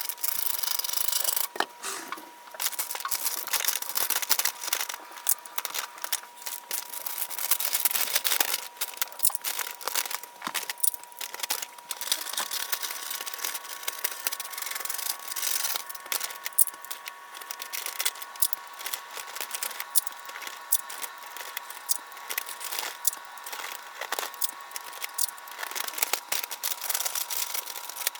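Paper or plastic packaging being handled: irregular crinkling and rustling with quick tearing sounds and small clicks, over a faint steady high tone.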